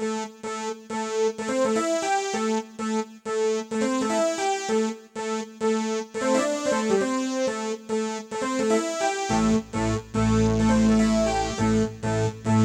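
Yamaha PSR-373 portable keyboard playing a piano-type voice: a melody of short notes over a held lower note. About nine seconds in, deep bass notes join and the sound gets fuller.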